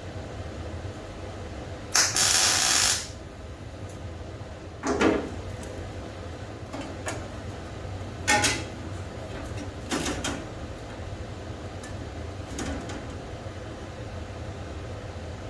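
Workshop tool sounds during the truck's disassembly: a loud hiss lasting about a second, two seconds in, then four short sharp metallic clicks and clanks spread over the next ten seconds, over a steady low hum.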